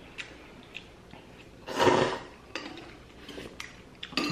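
Kalguksu noodles slurped once, loudly, about two seconds in, amid scattered light clicks of wooden chopsticks against bowls.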